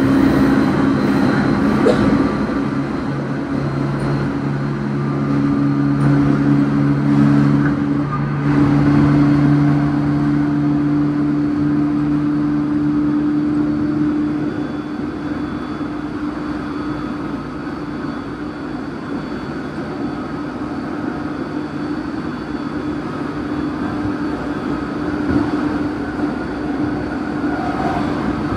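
JR 209 series electric train motor car running at a steady speed, heard from inside the carriage: a steady motor hum over rumbling wheel and rail noise. The motor hum fades about halfway through.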